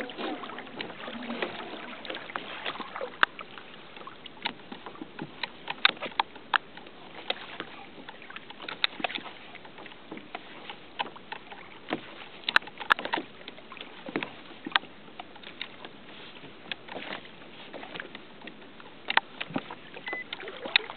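Sea water lapping and slapping against a plastic kayak's hull, a steady wash with scattered sharp, irregular clicks and knocks.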